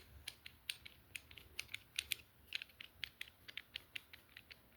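Faint, quick, irregular light clicking and ticking, several clicks a second, from a DNT QD150 quick-disconnect scope mount as it is handled and its clamp adjusted.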